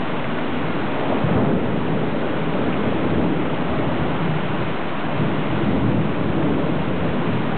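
Rain falling in a thunderstorm: a steady, even rush of noise with a low rumble underneath that swells slightly about a second in and again near the six-second mark.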